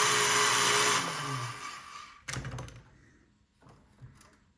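Lionel #182 magnetic crane's electric motor running loudly and steadily, driven from the push-button controller, then cutting off about a second in and winding down; a short knock follows.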